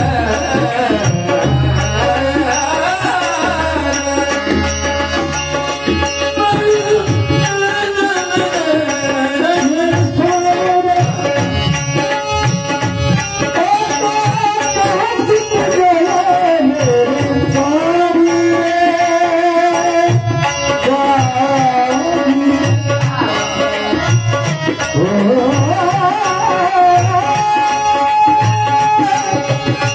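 Indian devotional music: a gliding melody over hand-drum strokes, with small hand cymbals ticking in a steady fast beat.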